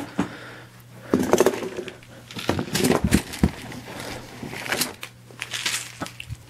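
Rummaging in a cardboard box: the cardboard and the items inside rustle, scrape and knock in irregular bursts, with handling knocks on the phone as it swings about.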